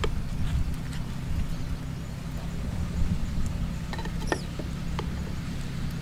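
A metal spoon stirring in a clay cooking pot, with a few light clicks against the pot about four seconds in, over a steady low rumble.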